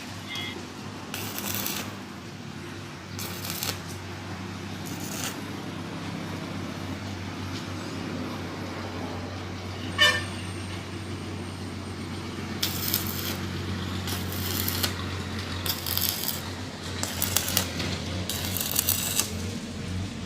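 Stick arc welding in short runs: the arc crackles and hisses for half a second to a second at a time, about eight times, over the steady hum of the welding machine. The weld is being built up bit by bit on top of a broken stud so the stud can be drawn out. A sharp click comes about halfway through.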